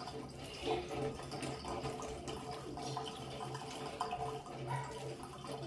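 Wet slime being kneaded and stretched with water and soap mixed in: small sticky squishing and clicking sounds, scattered and irregular.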